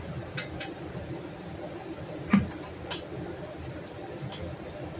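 A few light clicks and one louder knock about two seconds in, as a rubber bow roller is handled and fitted by hand onto a boat trailer's metal bow stop bracket.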